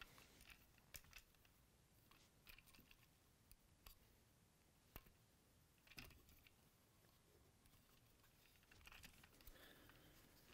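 Faint, scattered clicks and taps of hard plastic as parts of a 1983 Hasbro G.I. Joe Cobra F.A.N.G. toy helicopter are handled and pressed into a tight fit, with a little rustling near the end.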